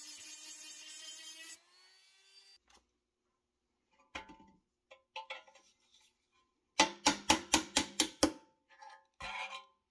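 A small cordless rotary tool runs with a steady whine, then switches off and spins down about a second and a half in. A hammer then taps a steel pin punch against the sheet-steel toy truck cab: a few light taps, then a quick run of about eight ringing metal strikes, the loudest part, and one more tap near the end.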